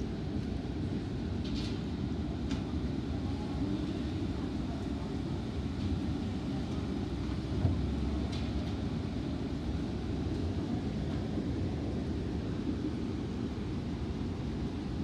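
Heavy rain and runoff water making a steady low rumbling noise, with a few faint ticks of drops.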